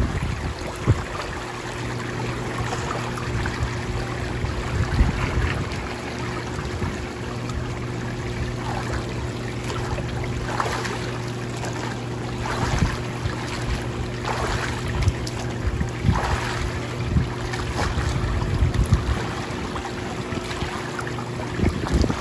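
Endless Pools X500 swim spa's current running, a steady low hum under churning, sloshing water, with splashes from someone exercising in the stream, more of them in the second half.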